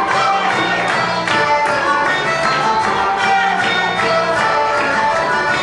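Lively music accompanying a can-can dance number on stage, a quick melody of short notes running on without a break.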